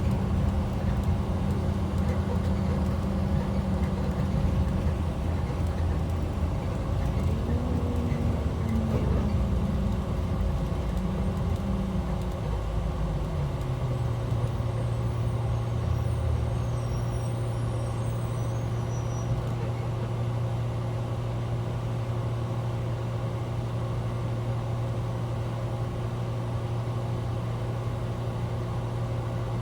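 2012 IC RE school bus's MaxxForce DT inline-six diesel engine running, heard from inside the cabin. The engine note shifts in pitch about halfway through, then settles into a steady, lower hum.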